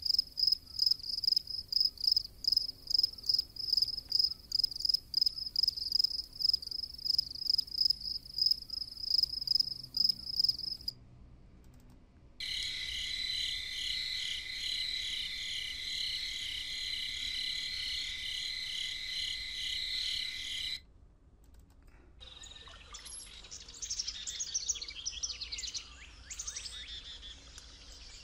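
Nature ambience sound effects played one after another: a high, rhythmic chirping of about three pulses a second, as of a cricket, cuts off; a steady insect trill follows; then varied birdsong chirps and whistles.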